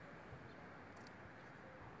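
Near silence: faint steady background hiss, with a faint tick about a second in.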